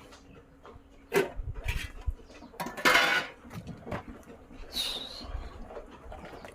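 Cooking pot and utensils being handled: a sharp knock about a second in, then a brief loud rushing noise about three seconds in, among smaller clatters.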